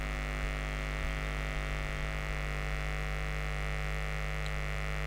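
Steady electrical mains hum with a stack of evenly spaced overtones.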